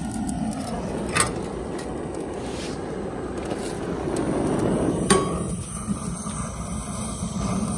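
Butane blow torch flame running with a steady hiss, broken by two sharp metallic clicks, about a second in and about five seconds in.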